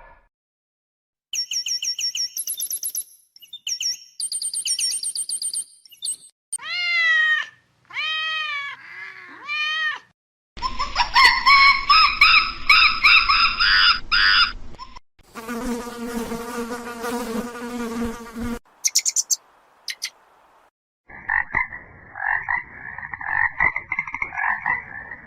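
A series of different animal calls, one short clip after another with brief gaps between them: high repeated chirps, then several arching calls that rise and fall in pitch, then denser noisier calls, and near the end a fast pulsing trill.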